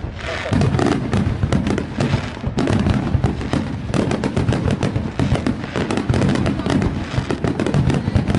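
Fireworks going off in a dense, rapid run of sharp cracks and bangs, with no let-up.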